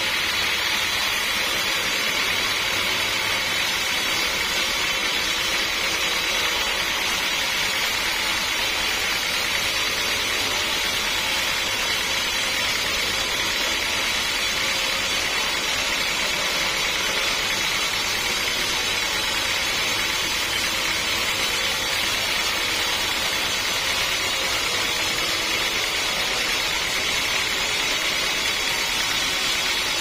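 Band sawmill running steadily, its blade sawing lengthwise through a teak log.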